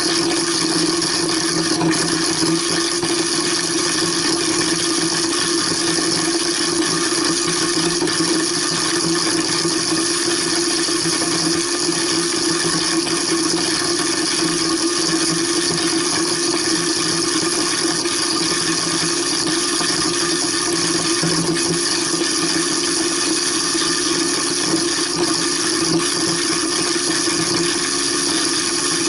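Waste King 1-horsepower garbage disposal running steadily with tap water pouring through it, grinding the last pieces of a lamb shank bone. The motor hum holds a constant pitch under the rush of water.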